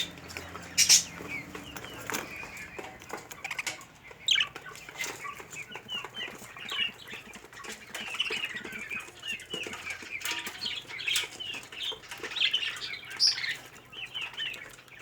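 A flock of birds chirping with many short, quick calls throughout, mixed with wing flaps, the loudest flap about a second in.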